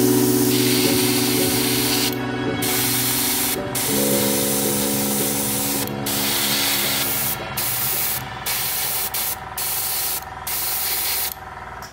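Gravity-feed airbrush spraying paint, a steady hiss broken by short pauses several times and cutting off near the end.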